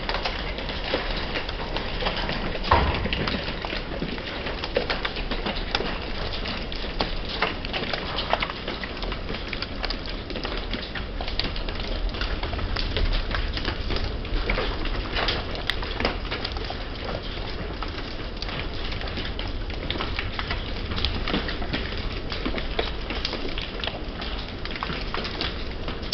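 Pea-sized hail and rain pelting a wet wooden deck: a dense, continuous patter of many small clicks as the ice pellets strike the boards, with one louder hit about three seconds in.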